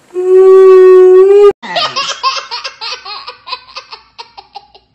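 A woman holding one loud, steady vocal note for about a second and a half, cut off abruptly, then a young girl's laughter in quick bursts that gradually slow and fade out.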